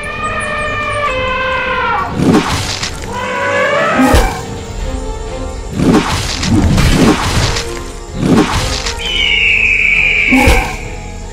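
Cartoon fight sound effects over background music: falling animal calls in the first few seconds, then a string of sharp impact hits, and a held high-pitched call near the end.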